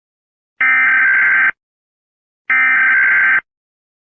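Emergency Alert System SAME header: two bursts of harsh, buzzing digital data tones, each just under a second long and about a second apart.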